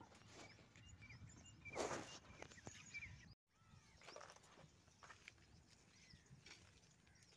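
Near silence: quiet open-air ambience with faint, short bird chirps and a brief rustle about two seconds in. The sound cuts out for an instant a little past three seconds.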